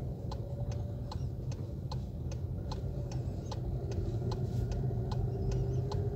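Car turn-signal indicator ticking steadily, about two to three clicks a second, over the low hum of the running car.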